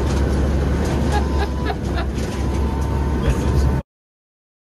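Hurricane hunter aircraft cabin noise in turbulence: a loud, steady low engine drone with scattered clicks and knocks from loose equipment and fittings rattling. It cuts off abruptly about four seconds in, leaving dead silence.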